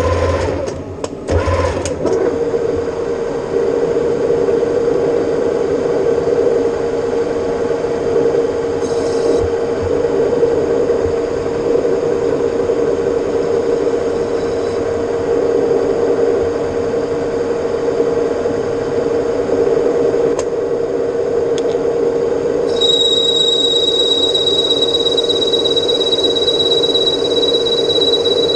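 Metal lathe running steadily while turning stainless steel, with a constant hum and machining noise. A few clicks and a brief dip come near the start, and about 23 seconds in a steady high whine joins the sound.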